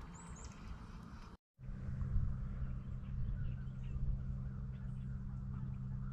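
Outdoor morning ambience: a few faint bird chirps over a steady low hum and rumble. The sound cuts out completely for a moment about one and a half seconds in, and the low hum is louder after it.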